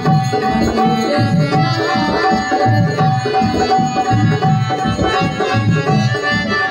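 Devotional music: a tabla playing a steady rhythm under steady held tones from a sustained instrument.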